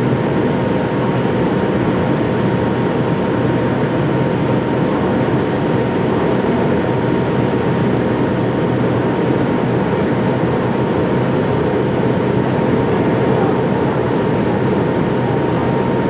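Steady cabin noise of an MD-82 airliner in its climb-out after takeoff: a constant rush of air and jet engine, with a faint steady hum running through it from the two rear-mounted Pratt & Whitney JT8D turbofans.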